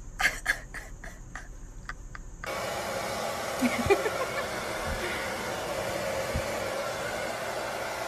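Handheld hair dryer blowing steadily on a wet chicken's feathers. It starts suddenly about two and a half seconds in, after a few faint clicks.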